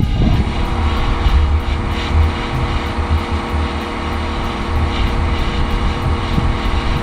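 A machine's motor starts up and runs at a steady speed with a constant, even hum.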